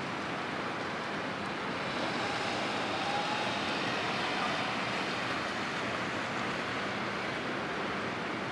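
Steady, even rushing outdoor noise with no distinct events or horn blasts.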